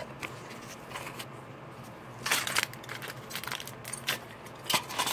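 Aluminum foil crinkling and rustling in several short bursts as it is handled, over a faint steady low hum.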